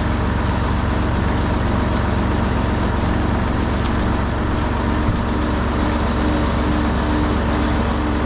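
A heavy vehicle's engine running steadily, with a low rumble and an evenly pulsing hum.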